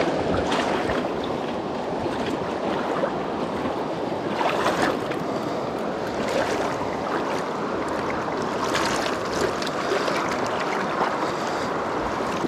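Shallow river rushing over a stony bed, with wading splashes and occasional clacks of stones as a mountain bike is pushed through the water.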